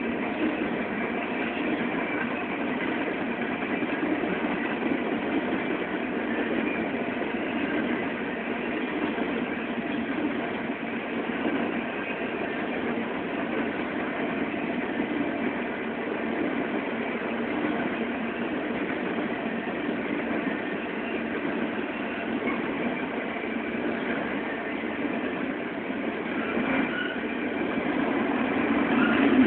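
BNSF coal train's hopper cars rolling past on the rails, a steady noise of wheels on track that grows a little louder near the end.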